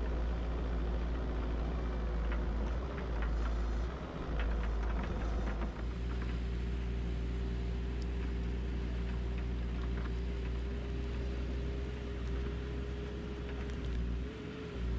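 Bobcat 435 compact excavator running steadily, with a held whine over the engine's low rumble and a few light clicks and knocks in the first half.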